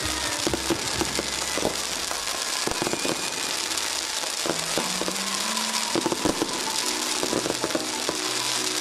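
Dense fireworks and firecrackers going off around the burning fire dragon: a continuous crackling hiss of spark fountains, broken by many sharp bangs that come thickest about six seconds in. Background music with held notes runs underneath.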